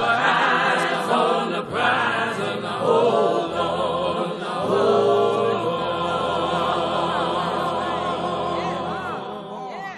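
Music of voices singing in long, wavering notes, easing off slightly near the end.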